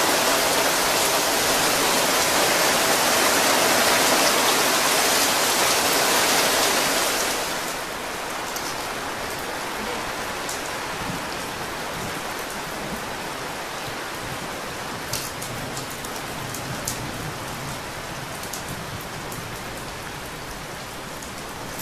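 Heavy rain beating hard on the canvas of a tipi, heard from inside. About seven seconds in it eases abruptly to a lighter rain with separate drops striking the canvas.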